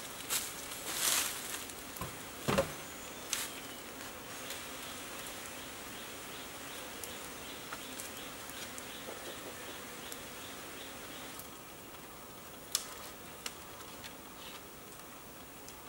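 Insects buzzing steadily, the buzz dropping away about three-quarters of the way through. Over it come knocks and rustles of green bamboo poles being handled, mostly in the first few seconds, and a couple of sharp clicks later.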